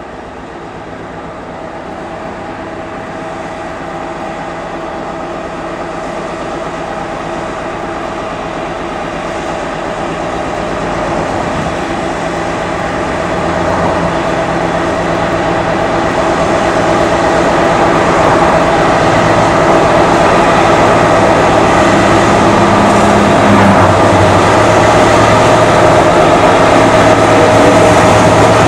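Class 60 diesel-electric locomotive pulling a tank train away from a loop under power: a steady engine note with a held whine, growing steadily louder as the locomotive approaches, then staying loud for the last several seconds.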